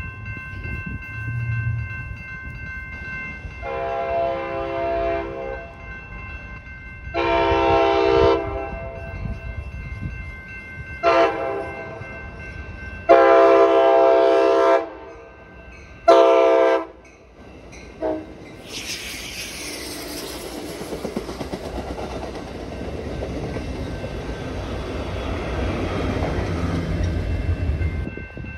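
Amtrak passenger train sounding its horn for a grade crossing: two long blasts, a short one, a long one, then two short toots, over the steady ringing of the crossing bell. The train then rolls through the crossing, its wheels rumbling and clacking on the rails.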